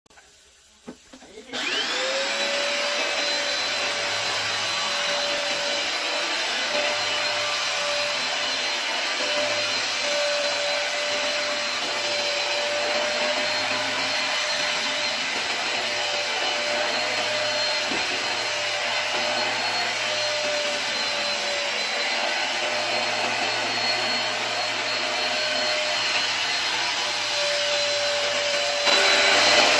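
Upright carpet cleaner switched on: after a click or two, its suction motor spins up with a rising whine, then runs steadily with a constant whine over a rushing noise as it works across a rug. It gets louder just before the end.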